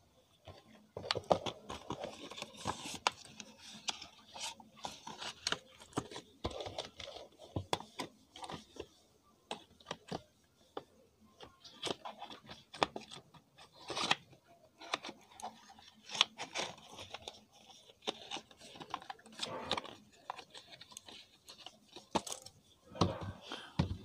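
Paper and cardboard gift packaging handled by hand: irregular rustling and crackling with many sharp clicks and taps, starting about a second in.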